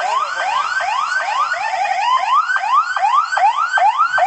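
A bus's telolet basuri musical horn sounding a fast, continuous run of rising whoops, about three a second, each gliding up in pitch and dropping back.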